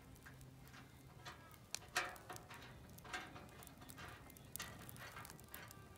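Faint, scattered clicks and taps of iron rod legs being fitted into a steel washing-machine drum, metal knocking on metal as they are seated.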